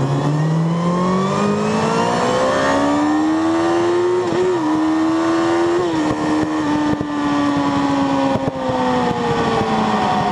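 Sport motorcycle engine heard from on board, accelerating hard with a steeply rising note for about four seconds, then falling slowly as the bike slows, with two brief dips in pitch in between. Wind rush at speed runs underneath.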